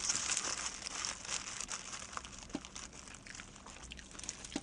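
Disposable plastic glove crinkling and rustling as a hand pulls a pizza slice from the box, with many small clicks. It is loudest in the first second or so and then fades.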